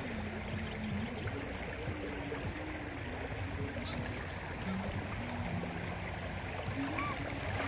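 Steady rush of shallow river water flowing.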